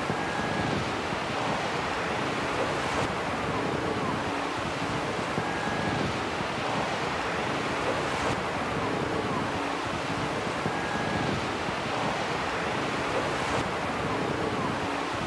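Steady rushing wind and surf noise on an open coastal flat, with a few faint short tones, repeating in a loop about every five seconds.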